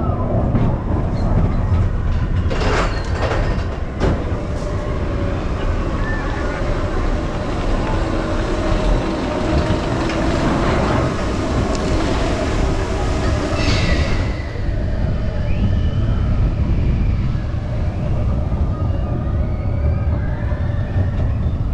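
Vekoma steel roller coaster train rolling along its track: a steady rumble of wheels on rail, with a few sharp clatters a few seconds in.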